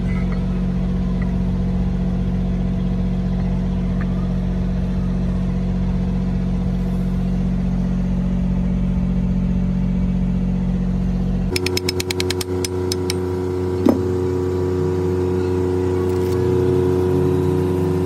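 A steady machine drone, like an engine running. About two-thirds of the way through it changes abruptly to a higher-pitched steady hum, with a quick run of clicks and, a moment later, a single sharp clink.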